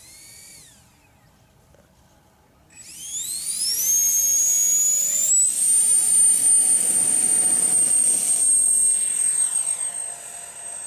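Electric ducted fan of a 3D-printed RC jet model. A short whine winds down right at the start; about three seconds in, the fan spools up to full throttle with a steeply rising whine that levels off into a loud, steady high whine for the take-off, then fades near the end as the model climbs away.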